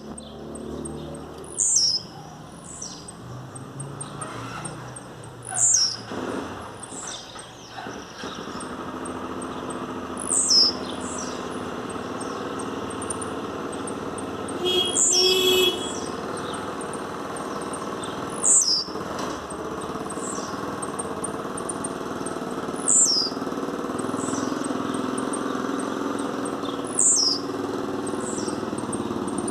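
Caged blue-black grassquit (tiziu) singing, a short high note that falls sharply in pitch, repeated about every four seconds, over a steady low background noise.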